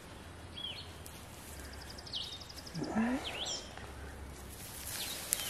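Wild songbirds chirping in the background: a few short calls and one quick, rapid trill, over a low steady hum.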